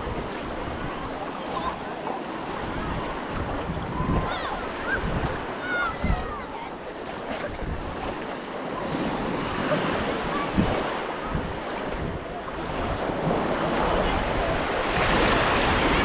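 Small sea waves washing onto a sandy beach, with wind rumbling on the microphone.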